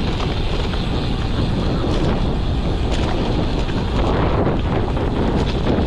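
Steady wind rushing over the microphone of a moving road bike, a loud, even buffeting rumble with no breaks.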